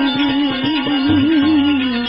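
Devotional bhajan music: one long held melody note with a wide, wavering vibrato over rapid hand-drum strokes, the note dropping away near the end.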